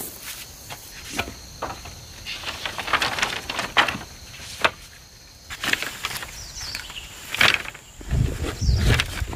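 Dry bamboo canes clattering and rustling in irregular short bursts as they are handled and bound into a bundle with a cord, with a few dull thumps near the end. A steady high insect buzz runs underneath.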